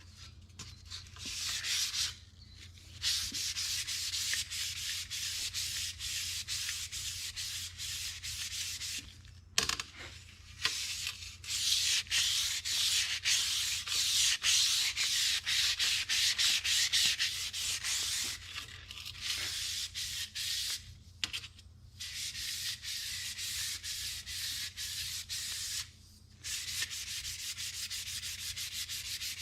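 Hand sanding stainless steel car trim with fine-grit sandpaper: a rhythmic scratchy rasp of quick back-and-forth strokes, stopping briefly a few times, as the scratches are worked out of the metal.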